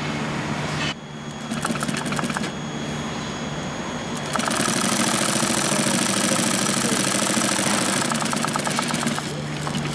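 Sewing machine stitching Velcro into a tent corner: a short run of stitching about a second and a half in, then a longer steady run from about four seconds in until near the end, over a constant low hum.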